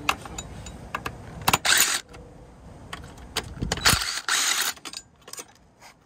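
Cordless drill-driver spinning in two short bursts, about a second and a half and about four seconds in, with clicks and rattles of the tool and parts between.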